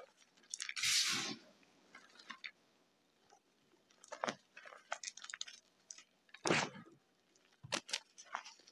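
Hands squeezing and crumbling crushed gym chalk, a series of short gritty crunches in bursts. The loudest comes about a second in, with more around the middle and near the end.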